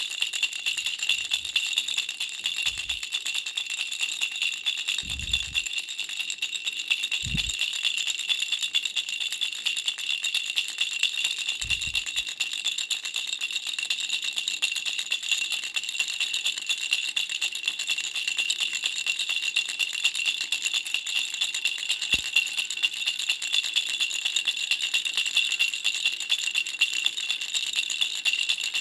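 Baby rattle, a pink butterfly rattle, shaken steadily and without pause in a dense, even rattle, with a few soft low thumps along the way.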